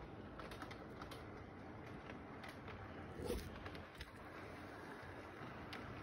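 Model train running on a curved layout track: the locomotive's small electric motor hum and the wheels clicking lightly over the track joints. A brief louder thump about three seconds in.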